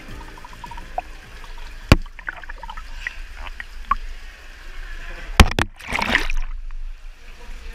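Water splashing and dripping around a handheld action camera as a swimmer floats, with two sharp knocks near 2 s and 5.5 s. Then a burst of splashing as the camera plunges underwater, and the sound turns dull and muffled.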